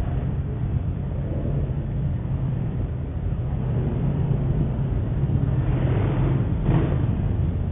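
Road vehicle engines running at a street junction: a low steady rumble heard through a security camera's microphone, with a brief swell of noise about six seconds in.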